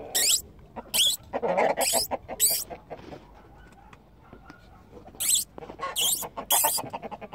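Poultry in a mixed flock of chickens and turkeys giving short, high-pitched squeaky calls, each falling in pitch, about seven of them in two clusters, with a lower, fuller squawk about a second and a half in.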